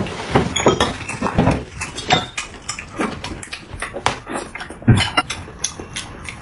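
Close-miked eating: chewing and slurping, with cutlery clicking against dishes in quick, irregular clicks.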